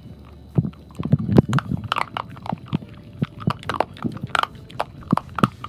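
A Weimaraner–Labrador mix dog chewing a bone close to the microphone: irregular crunches and gnawing clicks, several a second.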